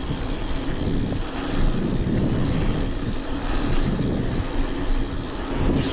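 Wind rushing over the camera microphone, with the steady rolling noise of mountain-bike tyres on asphalt, as the bike rides fast along a paved road.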